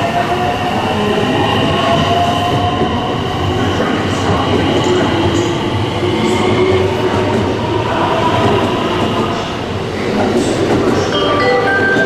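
JR West electric train pulling out of the platform and gathering speed. Its motors whine in slowly rising tones over a steady rumble and clatter of wheels on the track.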